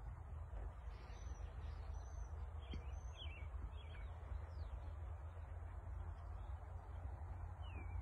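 Small birds chirping: a cluster of short, high, sliding calls in the first half and one more near the end, over a steady low rumble and hiss.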